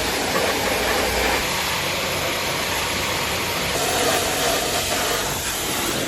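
Honda CR125 two-stroke motocross engine running steadily under way, largely buried in a dense rush of wind noise.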